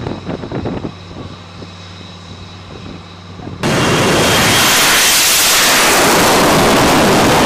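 An F-35B jet engine hums steadily on the carrier deck. About three and a half seconds in, a sudden, much louder jet roar takes over and holds steady.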